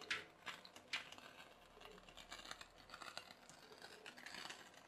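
Faint, irregular clicks and light crackling from a candle-heated pop-pop boat running in a sink of water, its CO2-capsule steam boiler sputtering water in and out of its three pipes.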